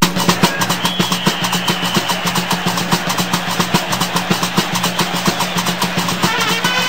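Music starting abruptly: a fast, steady beat over a held low drone, with a melody line coming in near the end.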